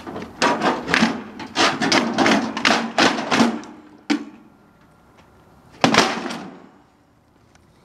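A quick run of a dozen or so sharp knocks in the first three and a half seconds, then a single knock about four seconds in and a last one near six seconds that rings on for about a second.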